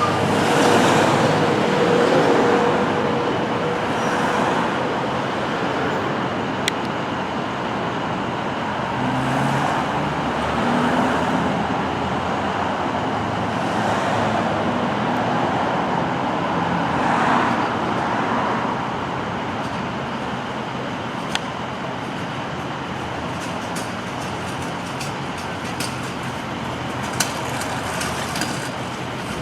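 Road traffic going by: cars passing one after another, the tyre and engine noise swelling and fading every few seconds, with a few brief clicks.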